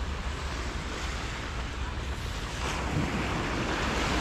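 Small waves breaking and washing up a sand beach, with wind buffeting the microphone. A louder wash swells in a little over halfway through.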